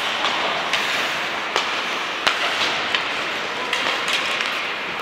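Ice hockey play: a steady scraping hiss of skates on ice, broken by several sharp clacks of sticks and puck.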